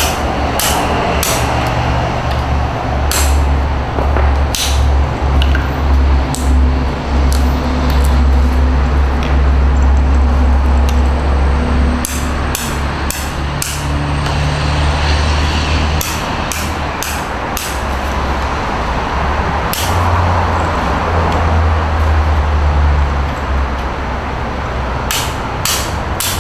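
Hammer blows on a tool held against a porcelain sink, chipping the ceramic: sharp cracks at irregular intervals, sometimes in quick runs of two to four, with pauses between. A steady low rumble runs underneath.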